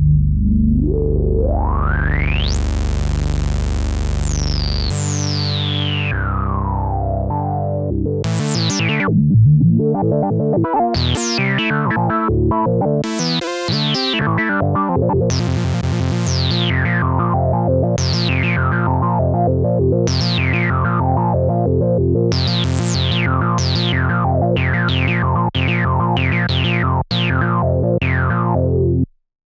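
Moog Minimoog Model D analog synthesizer playing. First a sustained low tone has its filter swept up over about three seconds, held bright, then swept back down. Then comes a run of notes, each with a quick downward filter sweep, cutting off briefly near the end.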